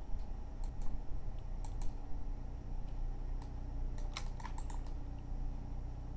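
Computer keyboard keystrokes: a few scattered clicks about a second and two seconds in, then a quick run of several around four seconds in, over a steady low hum.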